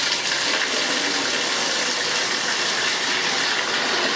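Water gushing steadily at full flow from a Delta MultiChoice tub-and-shower valve, filling a 5-gallon bucket, the valve's cartridge modified to pass more than its rated 2 gallons a minute.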